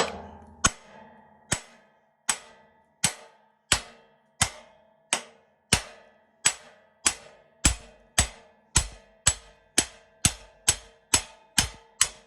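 Repeated hammer strikes on a metal bolt to drive its parts apart, each hit ringing briefly. The blows come about one every 0.7 seconds at first and quicken to two or three a second, in a steady rhythm that sounds like a choo-choo train.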